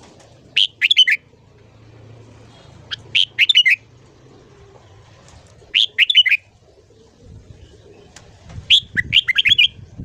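Red-whiskered bulbul singing: four short phrases of quick, whistled notes, about three seconds apart, the last one a little longer.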